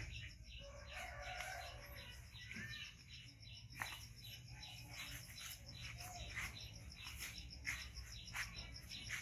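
A rooster crowing about a second in, over many short bird chirps and a steady high pulsing sound.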